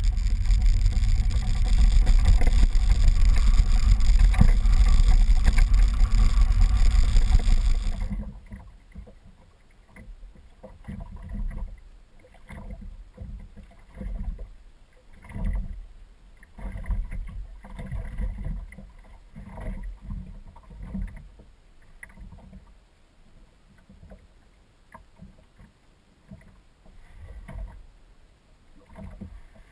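Steady rush of wind and road noise over a boat-mounted camera while the boat is towed on its trailer, cutting off about eight seconds in. After that come quieter, irregular low swells of light wind and water around a small boat drifting on a calm sea.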